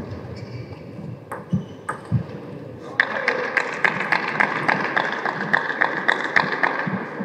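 A table tennis ball bounced over and over before a serve, making light, evenly spaced clicks about four times a second. A few scattered knocks come first.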